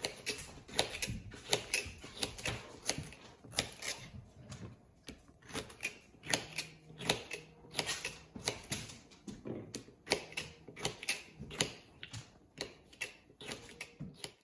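Knife slicing jalapeño peppers into rings on a plastic cutting board: an uneven run of sharp blade taps, about two or three a second.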